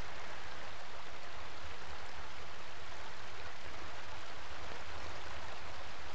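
Steady rushing of flowing river water with a low rumble underneath, from a river still running high after a couple of days' rain.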